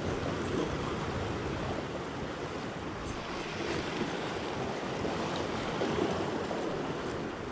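Small sea waves washing and breaking around shoreline rocks, in a steady surging wash, with wind buffeting the microphone.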